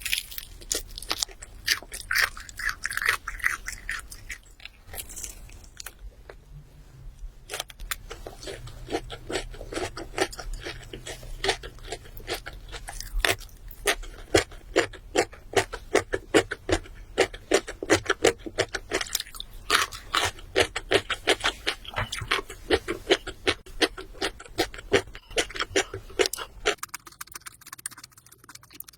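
Close-miked chewing of crunchy food: a few crunches, then a long run of rapid crunching bites and chews that stops a couple of seconds before the end.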